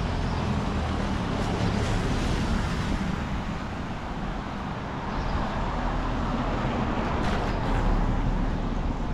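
Steady city street traffic noise: motor vehicles running and passing on the road.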